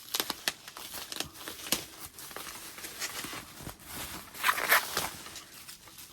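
Packaging being handled and unwrapped: crinkling wrapping with small clicks and taps, and a louder crinkle about four and a half seconds in.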